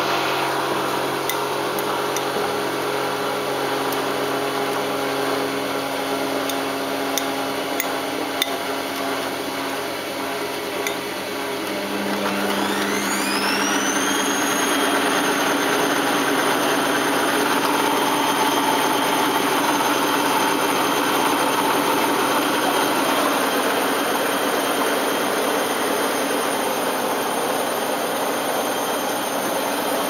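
Balay T-8295 front-loading washing machine: the drum turns with a steady motor hum and a few light clicks, then about twelve seconds in the motor speeds up into a delicate spin, its whine rising over two seconds and then holding steady.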